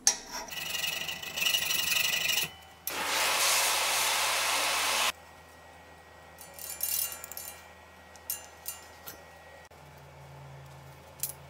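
Hand work on a small metal part clamped in a bench vise: a metal blade scraping across it for a couple of seconds, then a steady hiss lasting about two seconds, then quieter handling with a few small clicks.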